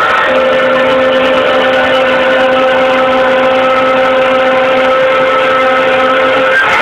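Loud live band music holding long sustained notes, with a short break near the end as the chord changes.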